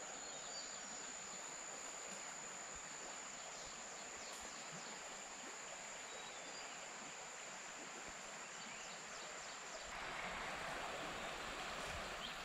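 Faint steady outdoor ambience: an even hiss of flowing river water with a thin, high, steady tone over it. About ten seconds in, the tone stops and the water hiss grows a little louder.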